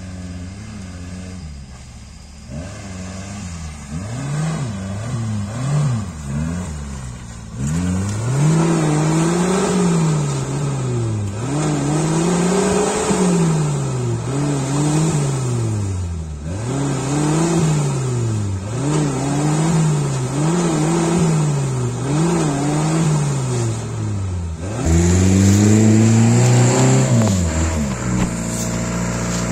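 Suzuki Samurai's engine revving up and falling back over and over, about once every one to two seconds, as it drives through deep mud ruts. Near the end the sound cuts to a louder, steadier 4x4 engine.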